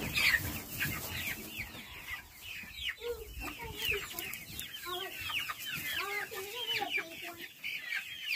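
A flock of young chickens peeping and clucking: many short, high, falling cheeps overlap throughout, with lower warbling calls joining from about three seconds in.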